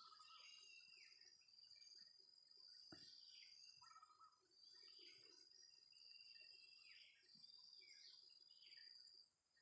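Faint song of a wild oriental magpie-robin: short whistled notes and downward-slurring phrases repeated every second or so. Behind it runs a steady high insect drone and a higher insect trill that pulses on and off.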